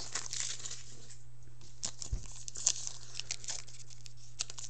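Foil wrapper of a Panini Titanium hockey card pack being crinkled and torn at by hand, an irregular run of crackles and rustles over a steady low hum.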